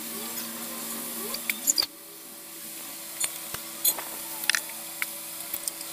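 Aerosol can of engine foam cleaner spraying over an engine bay, a steady hiss with scattered sharp clicks and a few short squeaks, over a steady low hum.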